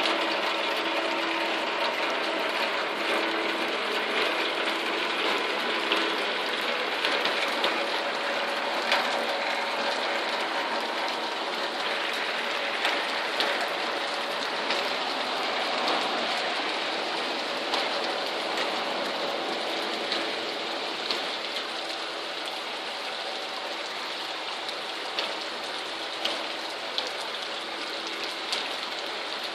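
Heavy rain pouring down on a flooded yard: a dense, steady hiss full of sharp ticks from drops striking hard surfaces, easing slightly near the end.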